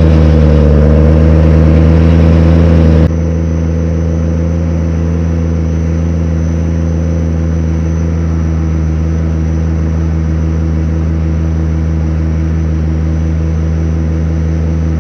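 Tractor engine running steadily under ploughing load. Its level drops abruptly about three seconds in, then the engine runs on at the same even pitch.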